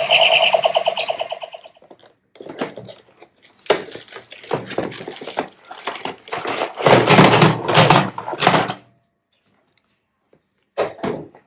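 Intro music ending, then a toy's packaging being handled: irregular scraping and knocks, thickest about two-thirds of the way in, with a short burst near the end.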